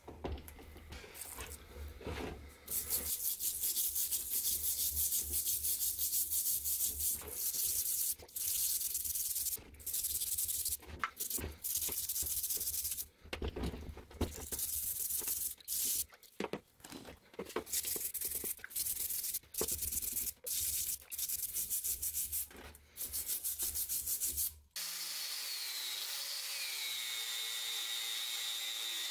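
A stiff brush scrubbing the wet, rusty iron head of an old hammer, a fast rasping in quick strokes with short pauses. About 25 seconds in this gives way to an angle grinder's wire wheel running against the metal, a steady high whine.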